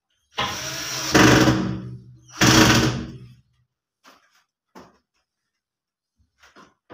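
Cordless drill driver running in two bursts, the first about two seconds long and the second about one second, driving the screws that fix a handle to a wooden wardrobe door. A few light clicks and knocks follow.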